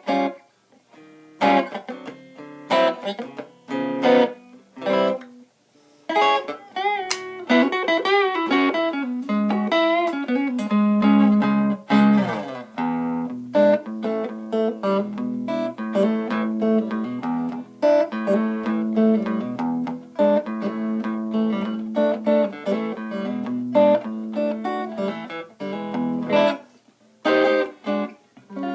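Electric guitar, a Stratocaster fitted with Lace Sensor and DiMarzio Virtual Solo pickups, played through a Blues Driver overdrive pedal with its gain turned down low. It opens with a few separate chord hits, then bent and wavering lead notes, and from about twelve seconds a repeated riff.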